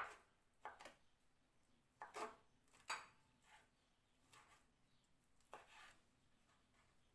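Kitchen knife chopping cooked prawns on a wooden cutting board: an uneven string of light knocks as the blade strikes the board, the sharpest right at the start, the rest spread over about six seconds.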